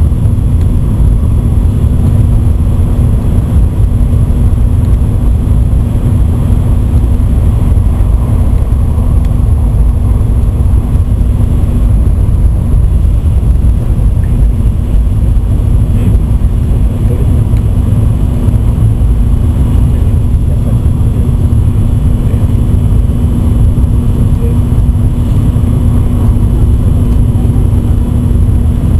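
Cabin noise of an N700-series Shinkansen running at high speed: a loud, steady low rumble with a faint steady hum that drops out for a couple of seconds around the middle.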